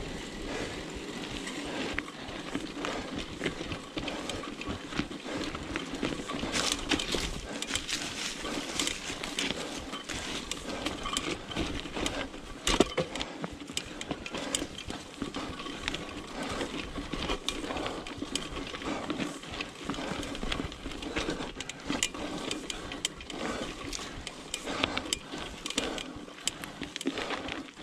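Specialized Pitch mountain bike riding over a dirt trail with rocks and leaves: steady tyre rumble, broken by frequent clicks and rattles of the chain and frame over bumps.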